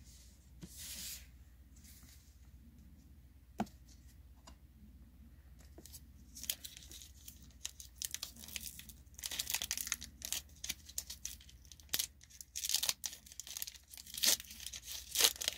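A Pokémon TCG Sword & Shield booster pack's foil wrapper being crinkled and torn open by hand: short bursts of crinkling and ripping, mostly in the second half, after a quiet start with one click.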